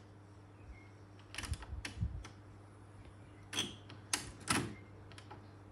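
Push-buttons on a Pioneer cassette deck's front panel clicking as they are pressed: a few light clicks, then three sharper ones a couple of seconds later, over a faint steady low hum.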